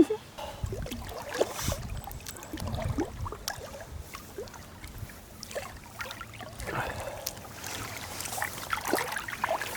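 Small creek water running and splashing, with irregular gurgles and light knocks.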